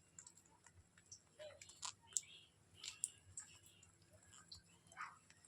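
Pet Indian ringneck parrot making faint, scattered clicks and a few short, soft chirps.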